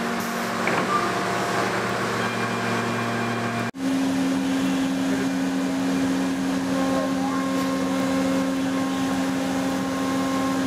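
CNC woodworking machining centres running: a steady machine hum with several steady tones. About four seconds in it breaks off for an instant and comes back as a different steady hum with a stronger low tone.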